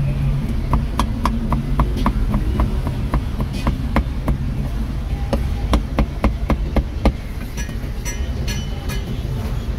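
Cleaver chopping cooked meat on a thick wooden chopping block: quick, even knocks about four a second that thin out to a few scattered chops after about seven seconds, over a steady low background rumble.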